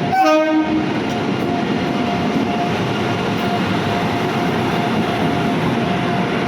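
Passenger train coaches rolling along the platform, a steady loud rumble with a faint steady whine. A short pitched tone sounds for about half a second at the very start.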